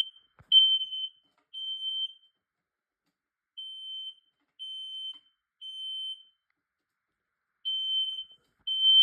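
Smoke alarm sounding after being set off by aerosol test smoke, beeping in the temporal-three evacuation pattern: groups of three high-pitched beeps about half a second each, with a pause of about a second and a half between groups. The middle group is quieter than the first and last.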